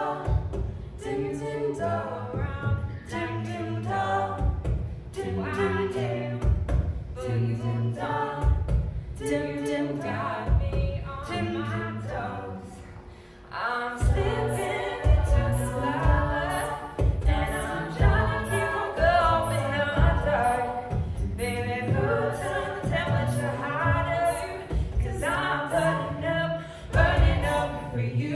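Women's a cappella group singing in close harmony through microphones and a PA, with a low sung bass line and a steady vocal beat. The singing thins out and drops quieter briefly about halfway through, then comes back fuller and louder.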